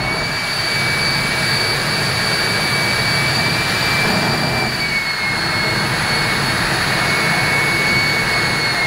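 Jet engine of the Bone Shaker jet truck running steadily: a loud continuous roar with a high whine over it, the whine dipping slightly in pitch about six seconds in.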